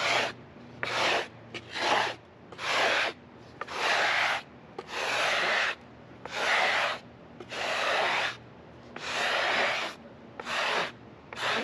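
Repeated brushing strokes sweeping sawdust off the freshly sawn face of a chestnut log, about ten swishes, each half a second to a second long.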